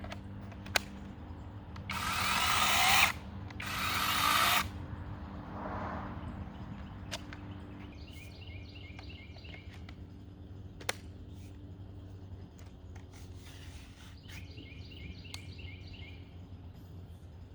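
Cordless brushless pole chainsaw cutting into branches in two bursts of about a second each, each getting louder as the cut goes, then a brief fainter third burst. Between them come a few sharp clicks.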